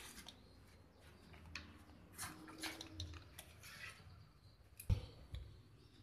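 Faint rustling and handling noise with scattered clicks, and a sharp knock about five seconds in.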